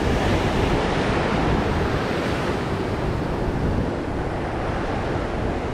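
Ocean surf on a rocky shoreline: a steady, even rush of noise, heaviest in the low end.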